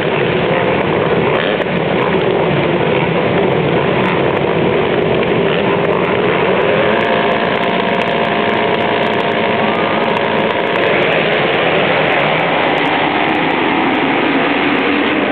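A full start gate of motocross bikes, their engines revving hard together on the line, then the whole field launching off the start near the end.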